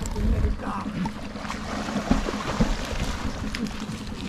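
Water sloshing and splashing as people wade chest-deep through a weedy channel, churning the water to drive fish toward a net.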